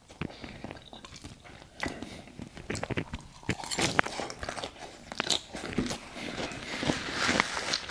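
A person chewing a mouthful of strawberry pecan salad, with crisp, irregular crunches from the lettuce and nuts. The crunching grows busier near the end.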